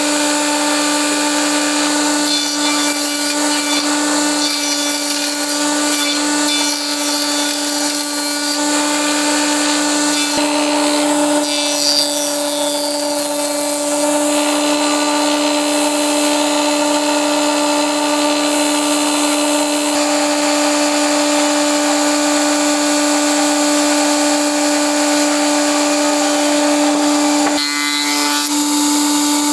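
Electric power tool running at a steady high-pitched whine while working wood, the tone holding level with abrupt shifts in the background noise a few times.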